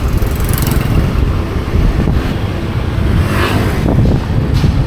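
Wind buffeting the camera microphone on a moving motor scooter: a loud, steady rumbling roar that masks most other sound.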